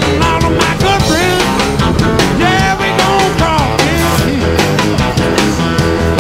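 Loud rock music with a steady drum beat and a melody line that slides up and down in pitch.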